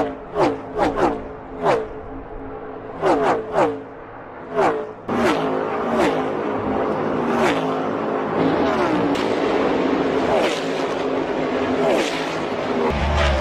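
NASCAR stock cars' V8 engines at full speed passing one after another, each engine note dropping in pitch as it goes by. About five seconds in, a bunched pack arrives and the passes overlap into one continuous engine sound.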